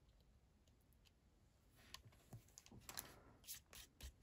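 Faint clicks and light rustles of paper and card being handled and pressed on a craft mat. The sounds are scattered and come mostly in the second half.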